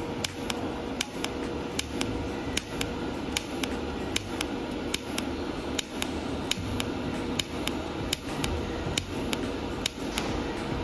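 DC TIG welding arc from a Taiwan Power TIG-200ADP inverter welder, run unpulsed and burning steadily with a constant hum and a crackle of sharp ticks, a few each second.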